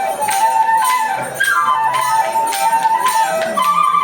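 Traditional Kenyan flute playing a melody in repeated falling runs, over a steady percussive beat about twice a second.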